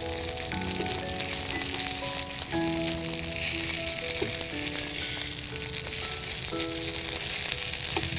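Small dosas sizzling steadily in oil on a nonstick tawa, with a few light clicks as wooden spatulas turn them. Background music with held notes plays over the frying.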